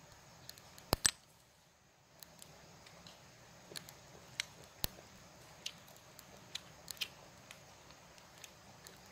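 Sharp, scattered clicks of roasted snail shells knocking against each other, the stone and a thin bamboo pick as the snails are handled and their meat is poked out. A pair of louder clicks comes about a second in, then lighter clicks every half second or so.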